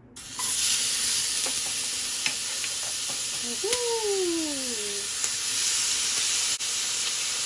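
Fried tofu cubes, onion and jalapeño sizzling steadily on a hot cast-iron sizzling plate, with a few light clicks as they are stirred. The sizzle starts just after the beginning.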